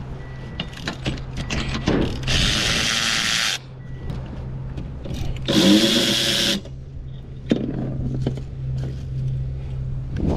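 Power tool running in two bursts, the first about two seconds in and lasting over a second, the second about five and a half seconds in and lasting about a second, undoing fasteners to remove a part. A steady low hum and light clicks of handled tools and parts lie underneath.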